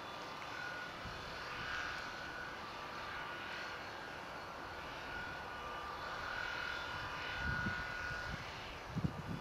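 Ford 7840 tractor's diesel engine running steadily while its side-arm flail hedge cutter works the hedge, a continuous mechanical drone with a faint whine over it. A few low thumps come near the end.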